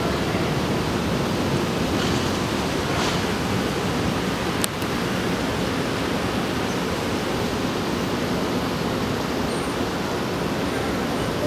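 Steady rushing wind noise on the microphone, heaviest in the low end, with one sharp click about four and a half seconds in.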